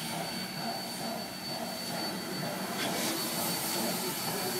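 Steam locomotive No. 481, a narrow-gauge K-36 Mikado, moving slowly with a steady hiss of steam, with a thin, steady high tone running through it.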